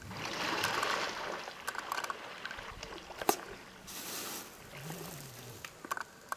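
Water splashing and sloshing as an African elephant swims submerged in a dam, rolling its body and head through the surface. The splashing is heaviest in the first second or so and comes again around four seconds in, with a few sharp clicks, the loudest a little past three seconds.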